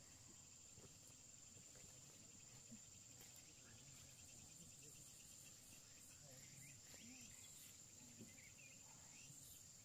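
Near silence with a faint, steady, high-pitched trill of crickets.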